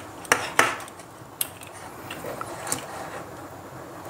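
Plastic clicks and taps of a bulb holder being handled as its canopy is taken off and a wire is fed through it: a few sharp clicks, the two loudest within the first second.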